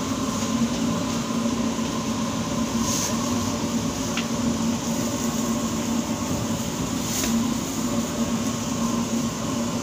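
Steady hum of bakery machinery: a low drone under an even rushing noise, unchanging throughout.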